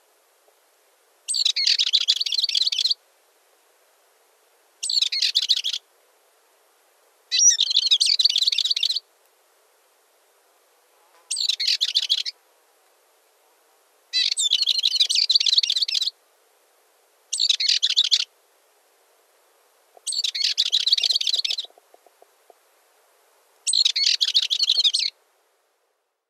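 Balearic warbler singing: eight short phrases of rapid, jumbled warbling notes, each lasting one to two seconds, separated by pauses of about two seconds.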